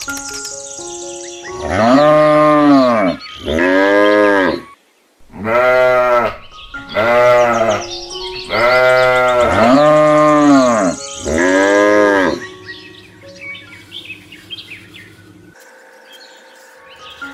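A cow mooing again and again: about seven moos, each around a second long, each rising and then falling in pitch, over light background music.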